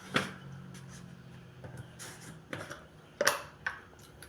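A few sharp, light clicks of kitchen utensils and containers being handled while batter ingredients are measured: one right at the start and two more about three seconds in, over a faint low hum that stops about halfway through.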